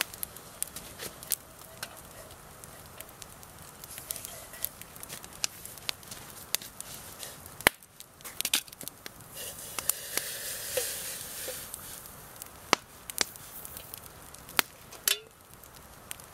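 Open wood campfire crackling, with sharp irregular pops from the burning logs over a low hiss, and a stretch of louder hissing about ten seconds in.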